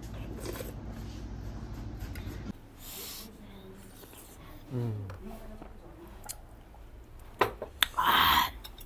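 Sounds of eating at a table: two sharp clicks of cutlery on a plate near the end, then a short loud noisy burst, with faint voices. A low hum stops suddenly about two and a half seconds in.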